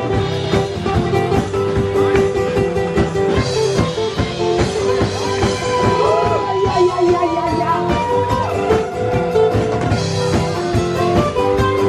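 Live acoustic rock: acoustic guitars played with a steady beat, with a lead line of bent and held notes about halfway through.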